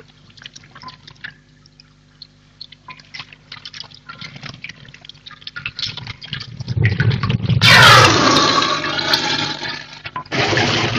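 Water sound effect in a cave: faint scattered drips, then a surge of rushing water that swells about six seconds in, is loudest around eight seconds, and eases off.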